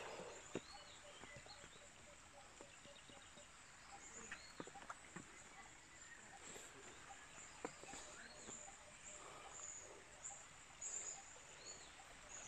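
Faint outdoor ambience: scattered short bird calls and high insect chirps over a low hiss, with a few soft clicks.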